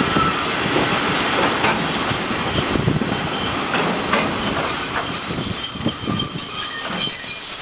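Steel wheels of a cement train's Taki tank wagons rolling slowly past with a steady, high-pitched brake squeal that grows stronger, over a rumble and a few clacks as wheels cross rail joints, as the freight train brakes on arrival.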